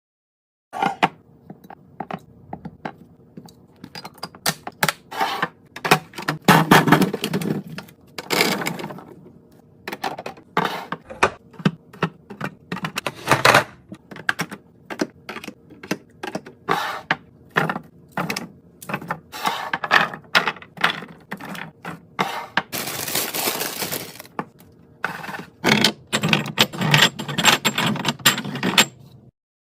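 Food containers, jars and packaging being handled while a fridge is restocked: a close, uneven run of clicks, knocks and clinks as items are set down and lids snapped on, with a few seconds of rustling about 23 seconds in.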